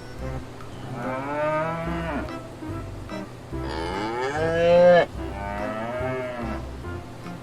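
Cow mooing three times in long, drawn-out calls; the middle call is the loudest, rising in pitch before it breaks off.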